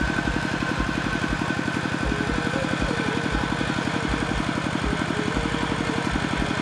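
Small engine running steadily at idle with an even, fast chugging beat that does not change.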